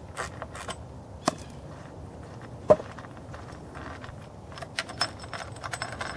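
Sharp plastic-and-metal clicks as a Mercedes intake manifold's flap actuator rod linkage is unclipped and handled by hand, with one loud snap nearly three seconds in and a run of lighter clicks near the end.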